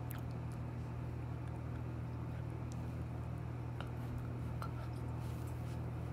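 A steady low machine hum throughout, with a few faint soft clicks and smacks as a puppy mouths and nibbles a person's fingers.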